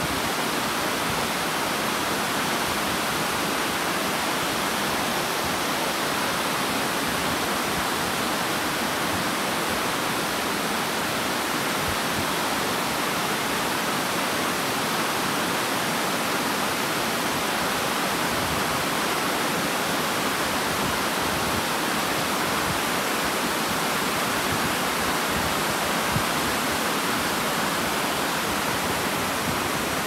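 Water tumbling down a broad, low rocky cascade into a pool: a steady, even rushing that does not change.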